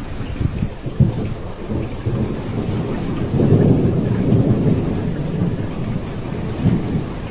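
Thunder rumbling over steady rain, the rumble swelling for a couple of seconds in the middle.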